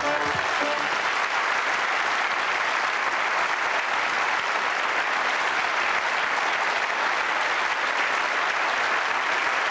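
Large studio audience applauding steadily, the last notes of the opening tune dying away in the first second.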